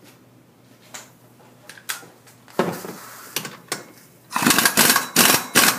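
Pneumatic impact wrench hammering on the 21 mm primary clutch nut to break it loose, in short bursts from about halfway through, coming faster and loudest near the end. A few light tool clicks come before.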